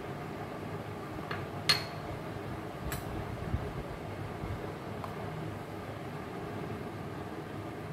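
Steady kitchen room noise with a low hum, crossed by a few light clicks. The loudest is a single sharp clink with a short ring a little under two seconds in.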